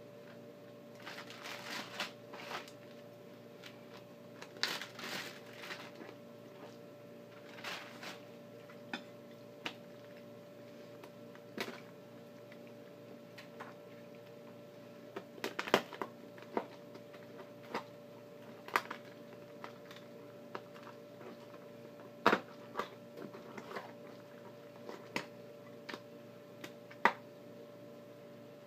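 Raw chicken pulled apart and moved about by hand on a wooden cutting board: scattered taps and clicks, with a few sharper knocks, over a faint steady hum.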